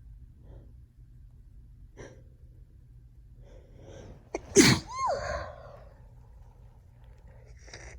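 A woman with a head cold sneezes once, loudly, a little past halfway, after a few faint breaths; the sneeze ends in a short voiced sound whose pitch rises and then falls.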